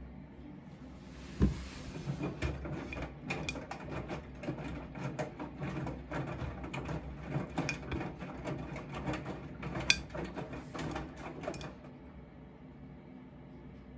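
Siemens washing machine drum turning during a wash, with irregular clicks and knocks for about ten seconds, then going quieter near the end as the drum pauses.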